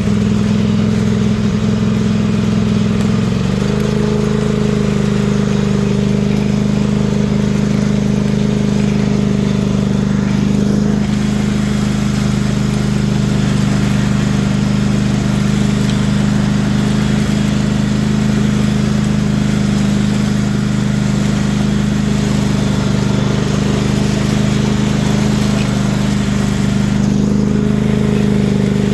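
Lawn mower engine running steadily through a truck exhaust pipe fitted to it. The engine note shifts slightly about three and a half seconds in, then holds even.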